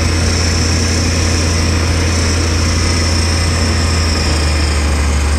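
Tractor engine running at a steady speed: a loud, even, low drone with a thin high whine above it, unchanging throughout.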